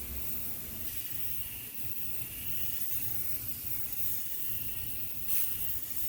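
Aerosol sprayer hissing steadily as it mists denatured alcohol onto a shellac finish to draw out cloudy water marks, with a brief louder burst near the end.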